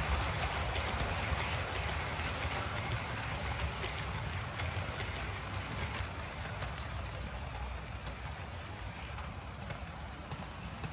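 Model train running around the layout: a steady rumble of wheels on the rails with faint rapid clicking from the track, slowly getting quieter.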